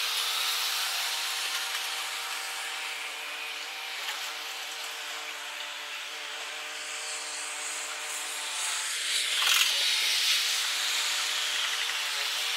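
Jet noise from a Boeing KC-767's twin turbofan engines as it climbs away after a touch-and-go, played back four times fast so it comes out as a high, steady hiss with several held tones. There is a brief louder burst about nine and a half seconds in.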